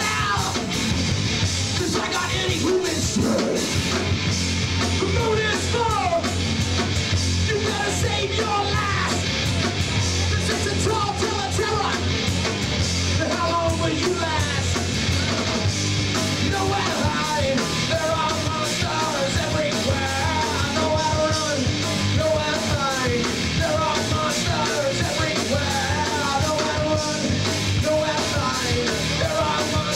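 Live punk rock band playing loud, fast and hard with no words sung, and a wavering lead line standing out through the second half.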